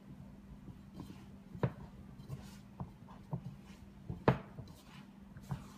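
Pizza dough being kneaded by hand in a ceramic bowl: irregular soft thumps and knocks as the hands press and push the dough against the bowl, the loudest a little past four seconds in, over a steady low hum.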